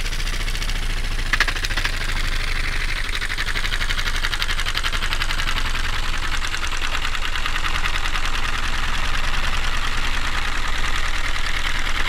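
Carpenter bee (Xylocopa) wing buzz, recorded into the ultrasonic range and pitched down several octaves, so it becomes a steady, rapidly pulsing drone like an idling engine. A short click comes about a second and a half in, and the drone grows a little louder toward the end.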